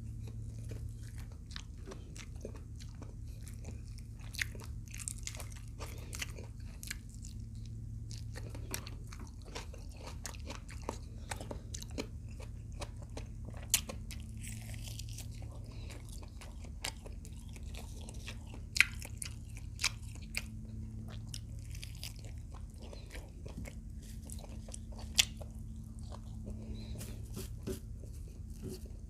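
A person chewing and crunching food with the mouth close to the microphone: many small crisp clicks, with a few louder sharp crunches scattered through. A steady low hum runs underneath.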